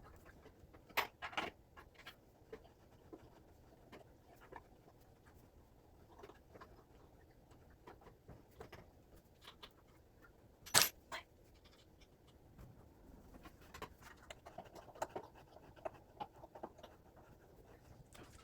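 Scattered light clicks and knocks of plant-stand parts being handled and fitted together during assembly, with one sharper knock about ten seconds in.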